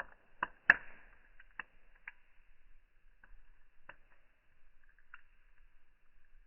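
Fire crackling, with scattered sharp pops: a cluster near the start, the loudest under a second in, then single pops every second or so.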